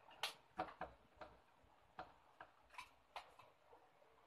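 Faint, irregular clicks and taps, about ten of them, the loudest in the first second.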